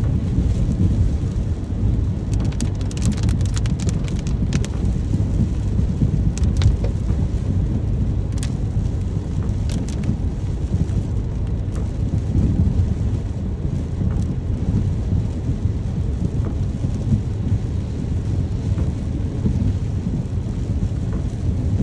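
Steady rain with a continuous low rumble under it, and a cluster of sharp drop ticks between about two and ten seconds in.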